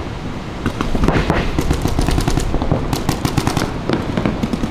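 Paintball markers firing in several rapid strings of sharp pops, about ten shots a second.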